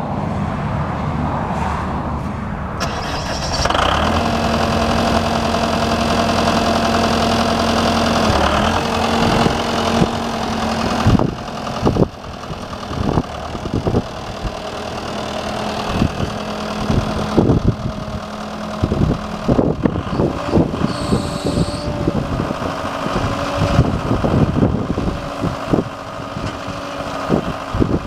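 John Deere 85F four-wheel-drive tractor's engine running. It steps up in speed about four seconds in and holds steady, then rises and falls in pitch with short knocks and clunks as the tractor is driven.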